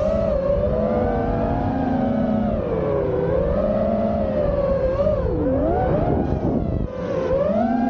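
5-inch FPV racing quadcopter's brushless motors and propellers whining right at the microphone, the pitch rising and falling with the throttle. About five seconds in the pitch dips sharply and climbs again, and it drops out briefly near seven seconds before coming back up.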